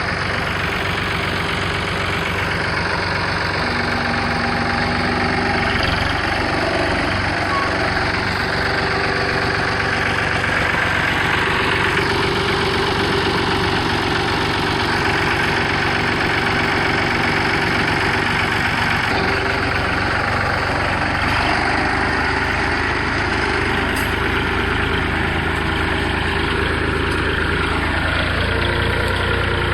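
Tractor engine running steadily under load while pulling a middle buster plow through potato rows to lift the potatoes.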